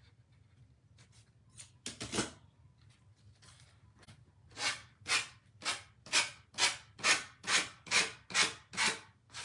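Sanding block rubbed along the edge of a paper-covered metal cloud to take off the overhanging paper: one longer scrape about two seconds in, then about ten quick strokes, two a second.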